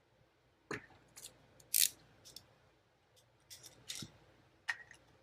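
Plastic USB charger case being worked at with a tool to crack it open: a series of short clicks and scrapes, the loudest about two seconds in.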